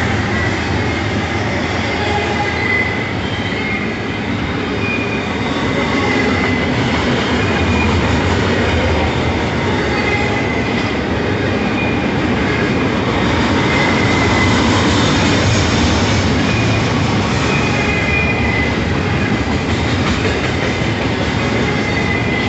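Double-stack intermodal freight cars of a Norfolk Southern train rolling past, a steady rumble of steel wheels on the rails with a high wheel squeal that comes and goes every few seconds.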